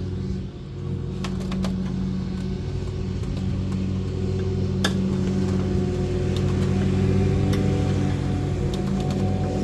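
Plastic trim pop clip being pried out with a pop trim tool: a few sharp clicks and snaps, over a steady low machine hum.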